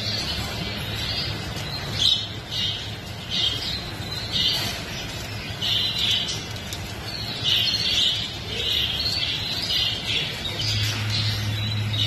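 A shopful of caged domestic canaries chirping and calling, many short high notes in quick succession, with some wing flutter. A steady low hum runs underneath.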